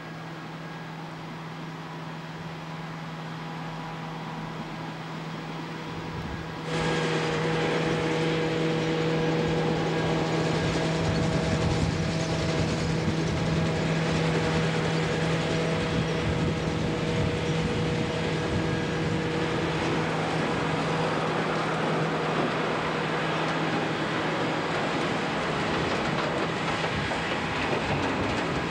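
Self-propelled forage harvester and tractors running in a maize field: continuous diesel engine and machinery noise with a steady whine from the chopping and blowing gear. The sound jumps suddenly louder about seven seconds in.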